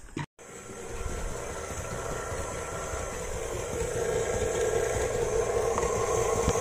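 KitchenAid Artisan stand mixer motor running steadily, growing louder about four seconds in.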